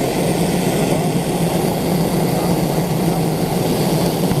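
Petromax kerosene pressure lantern's preheater burner running, a steady rushing noise with a low hum, while it heats the vaporiser before lighting.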